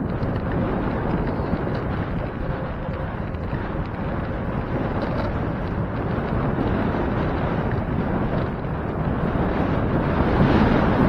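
Wind rushing over the microphone of a camera riding along on a moving bicycle, a steady noise that grows a little louder near the end.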